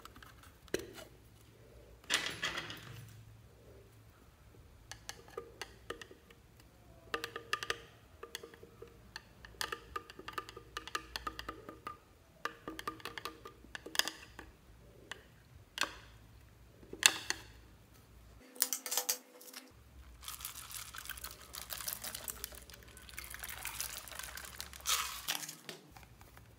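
Sharp clicks and taps from a plastic eyeshadow palette being handled, then a thin tool scraping and squeaking in the palette's powder pans. Near the end, a steady rushing hiss of sprinkles pouring onto slime, lasting about five seconds.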